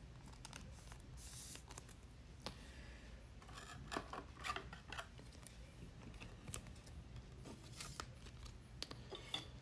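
A trading card being slid into a rigid plastic top loader and handled: faint scraping of card against plastic with scattered light clicks.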